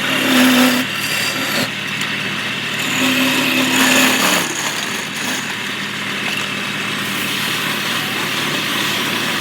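Wood lathe running steadily, with the turning wood being worked against in two louder spells, the first about half a second in and the second from about three to four and a half seconds in.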